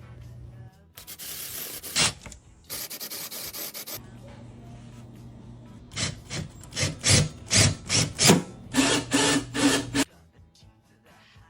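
Wood being worked on a wooden baseball bat: two stretches of rasping early on, then from about the middle a run of rhythmic back-and-forth rasping strokes, about two to three a second, which stop suddenly near the end.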